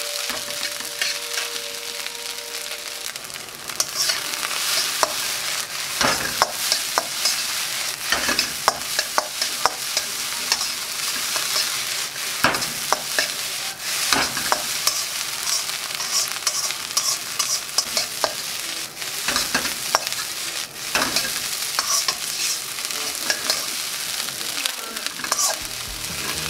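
Shrimp and egg fried rice sizzling in a wok while a metal slotted spatula scrapes and knocks against the wok as the rice is stirred and tossed. The scraping and knocking grow busier after about four seconds.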